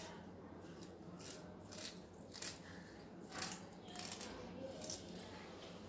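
Small kitchen knife cutting raw peeled ginger into small pieces: a few faint, crisp cuts at uneven intervals.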